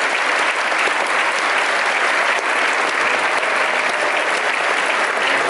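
Steady applause from a large audience.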